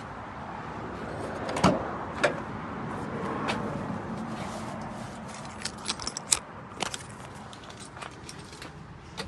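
Keys jangling with a series of sharp clicks and knocks, the loudest about one and a half and two seconds in and a cluster of jingling clicks around six seconds in: keys and door handling at a 1996 Daihatsu Hijet mini truck's cab.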